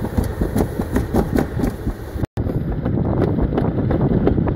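Summer toboggan sled running fast down a stainless-steel track: a steady rumble and rattle of its wheels on the metal trough. The sound drops out for an instant about halfway, then carries on.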